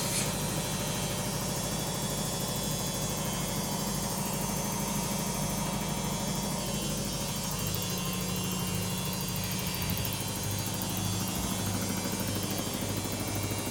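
LG WD-80155NUP front-loading washing machine running its Quick 30 programme: a steady motor hum and whir of the turning drum, its tone changing slightly about seven seconds in.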